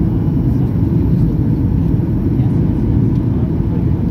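Steady low cabin roar of a Boeing 737-800 in flight, heard inside the cabin from a window seat by the wing: the noise of its CFM56-7B turbofan engines and the airflow over the fuselage.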